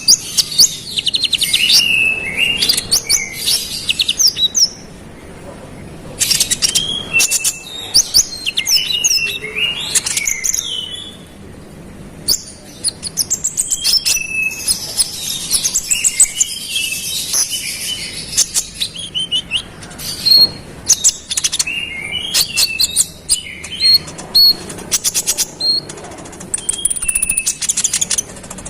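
Common iora (konin) singing persistently: bursts of rapid rattling trills and sharp whistled chirps, broken by short pauses about five and eleven seconds in.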